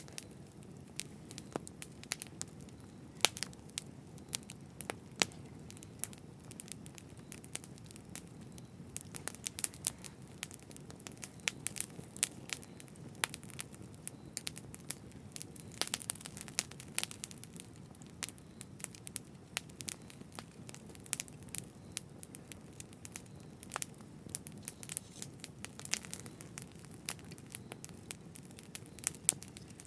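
Campfire burning: irregular crackles and sharp pops of burning wood over a low, steady rumble of the flames.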